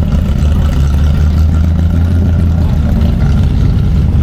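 Car engine running steadily with a low, even hum.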